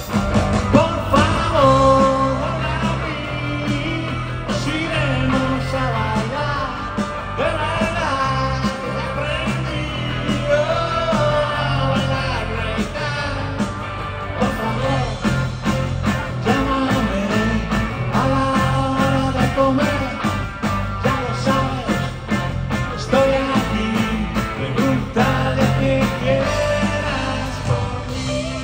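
Rock band playing live in an arena, with bass guitar, drums and electric guitar under a singing voice, heard from the audience.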